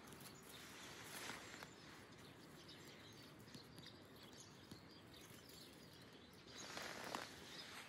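Near silence: faint outdoor background noise, with a brief rustling swell near the end.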